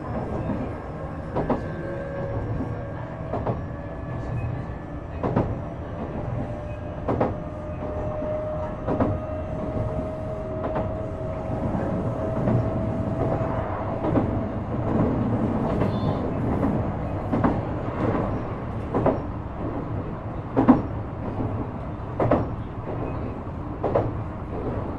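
Shizuoka Railway A3000-series electric train running on the line, its wheels clacking over rail joints at an even beat that quickens as it speeds up. A thin whine from the Toyo IGBT-VVVF traction drive rises slowly in pitch under the steady running rumble while the train accelerates.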